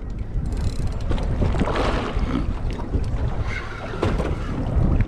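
Wind buffeting the microphone over the general noise of a fishing boat at sea, with a gust swelling about one and a half to two and a half seconds in.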